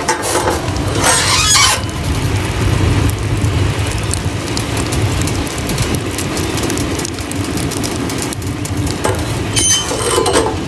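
Wood fire burning in the firebox of a homemade maple-sap evaporator: many small crackles and pops over a steady low rush. Near the end there is a short metal squeal as the cast firebox door is shut.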